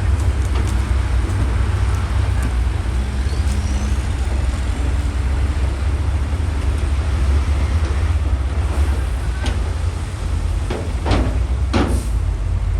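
Diesel engine of heavy earthmoving machinery running steadily with a deep rumble, and two sharp knocks near the end.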